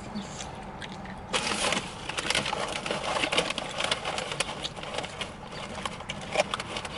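Food wrapping being handled, crinkling and rustling in rapid crackles that start about a second in and keep on.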